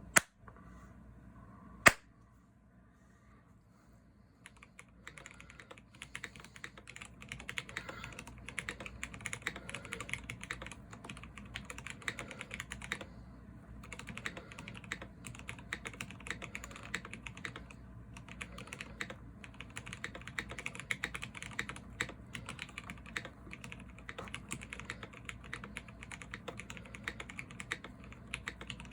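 A custom Salamander TKL mechanical keyboard with lubed Zealios V2 67g tactile switches, PBT keycaps and a carbon fiber plate, typed on fast and continuously from about five seconds in, with a short pause about halfway through. Two sharp, louder clicks come in the first two seconds, before the typing starts.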